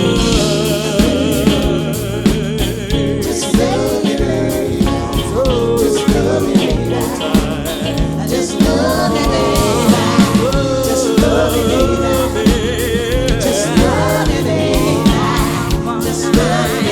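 Live soul band with a female lead singer improvising melismatic vocal runs over bass and drums.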